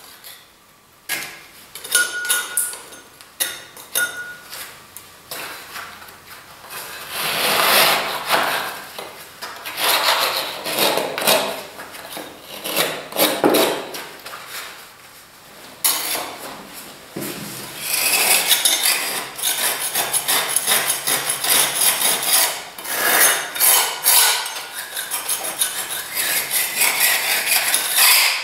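Hand tool scraping and rubbing dried plaster off a wall corner in repeated irregular strokes, with occasional knocks, cleaning the corner for an aluminium corner bead.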